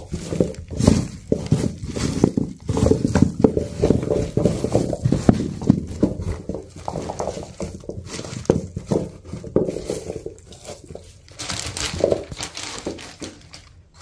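Freshly dug potatoes being handled and cleaned by hand: irregular rustling and scraping of soil with soft knocks as potatoes are moved and set down. A brief louder hiss comes about eleven seconds in.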